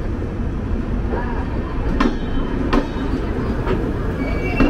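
Indian Railways LHB passenger coaches rolling past close by: a steady low rumble of wheels on rail, with about four sharp clacks as the wheels cross rail joints.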